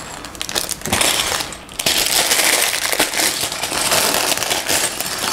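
Clear plastic Lego parts bag crinkling and crackling as it is handled and opened, with a few sharp clicks and a brief lull about a second and a half in.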